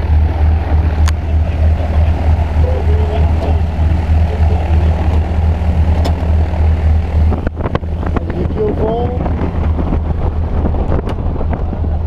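Single-engine high-wing plane's piston engine and propeller idling on the ground, a steady low drone, with wind buffeting the microphone.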